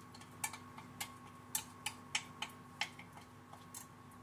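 Irregular light clicks and taps from a jar and utensil knocking against each other as a thick turmeric-honey paste is scraped out into a plastic mixing tub, over a faint steady hum.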